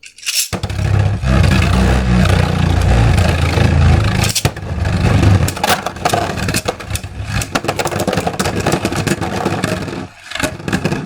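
Beyblade tops launched with a ripcord launcher into a plastic stadium, spinning and clashing: a loud grinding whir with rapid clacks of collisions and scraping, dying down near the end.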